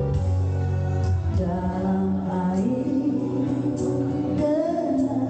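A woman singing live into a microphone over backing music played through a sound system, her voice sliding between long held notes.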